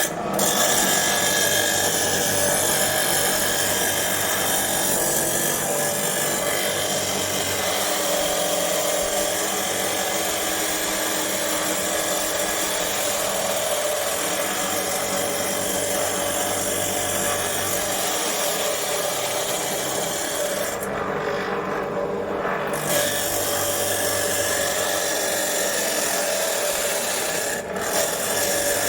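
Electric chop saw cutter running and cutting, a steady grinding whine with a dense hiss. The high hiss drops away for about two seconds around twenty seconds in, then returns.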